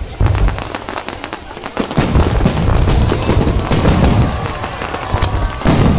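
Fireworks display: a rapid string of bangs and crackles from bursting shells, thickening into a near-continuous barrage about two seconds in, with faint whistles gliding through it.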